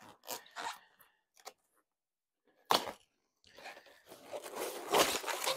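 Packing material around a new e-bike battery being torn open and handled: scattered short rustles, one sharp crack about three seconds in, then a longer stretch of tearing and crinkling that grows louder toward the end.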